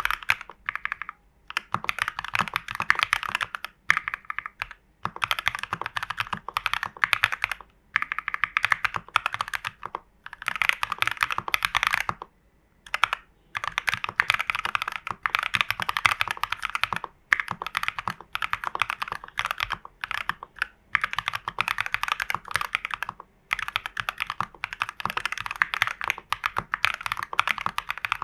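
Mechanical keyboard with linear KTT Strawberry switches in a plastic TU40 case, with case foam, PCB foam and tape mod, being typed on fast. The keystrokes come in quick runs broken by short pauses.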